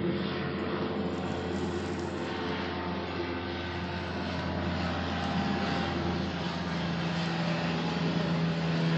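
A steady engine drone with a low hum and a few steady tones; one low tone grows stronger about two-thirds of the way through.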